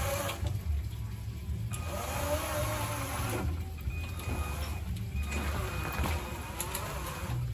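24 V electric gear motors of a battery-driven RC lawn mower whining through their chain drive as the mower drives and turns, the whine rising and falling in pitch as the motor speed changes; the petrol engine is not running.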